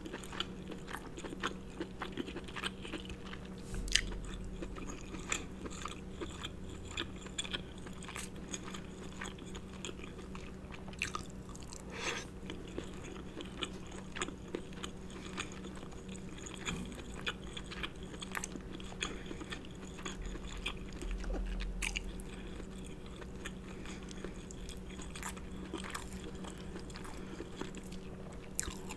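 Close-miked chewing and wet mouth sounds of someone eating soft crab and shrimp meat coated in alfredo sauce, with scattered lip smacks and clicks. A steady low hum sits underneath.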